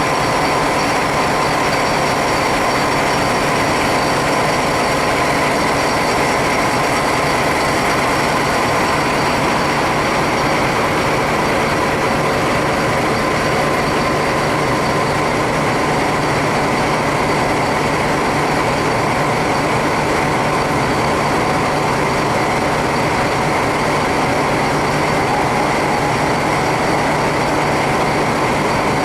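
SNCF BB 67400 diesel locomotive's SEMT Pielstick V16 diesel engine idling steadily at a standstill.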